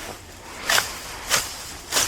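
Grass being ripped out of the lawn by hand: three short tearing pulls about half a second apart.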